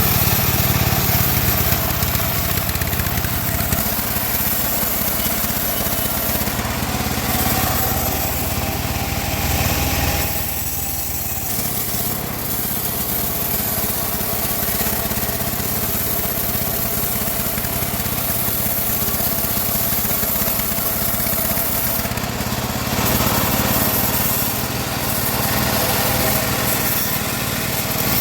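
Band sawmill running steadily, a continuous machine drone with small shifts in pitch and a brief dip about ten seconds in.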